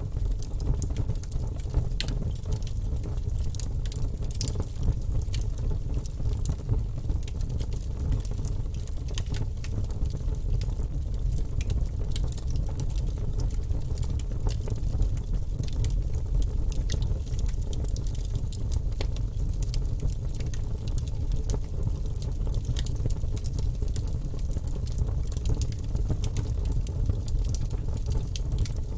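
Wood fire burning in a fireplace: a steady low rumble with frequent small crackles and pops.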